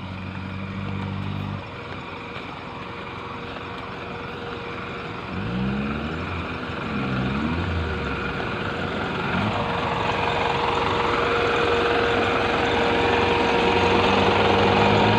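Off-road 4x4's engine running while the vehicle crawls along a muddy trail, revved up a few times about six to seven seconds in. It grows steadily louder as the vehicle comes up and passes close by.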